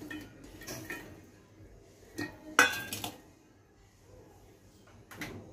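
Pieces of fresh coconut and spices tipped from a steel plate into a stainless-steel mixer-grinder jar: scattered clinks and knocks of steel on steel. The loudest is a sharp ringing clink about two and a half seconds in.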